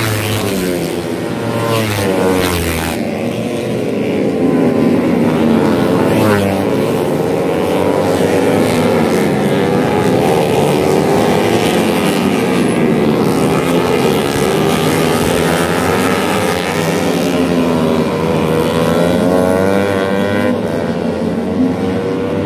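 Several tuned four-stroke underbone racing motorcycles of up to 150 cc revving hard, their engine notes overlapping and rising and falling as they go through the gears and pass.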